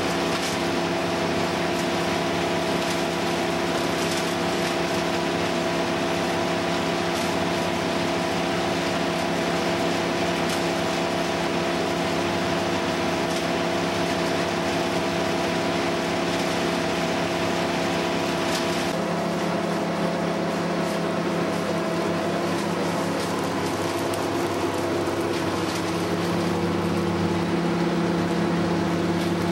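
A machine engine running steadily under a constant drone, with a shift in its pitch and load about two-thirds of the way through.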